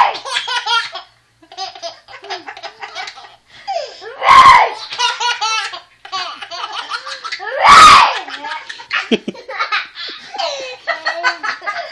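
A baby laughing hard in long runs of rapid belly laughs. Each run is set off by a loud, short burst of noise from an older child, twice: about four and about eight seconds in.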